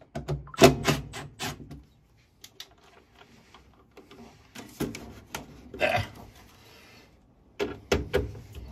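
Irregular clicks and knocks of tools on a gas furnace's sheet-metal inducer assembly as its screws are loosened, in three bunches with a quieter stretch after the first.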